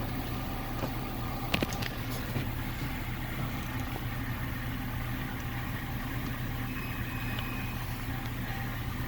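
A steady low background hum with a few sharp metallic clicks, the loudest about one and a half seconds in and another near two and a half seconds, as small tools work on a picked euro lock cylinder while it is being taken apart.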